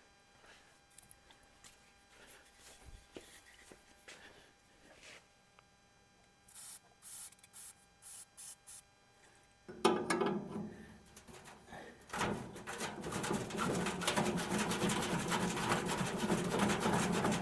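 Hand tools working on stiff fittings: a few short knocks partway through, then a long stretch of steady scraping and rubbing.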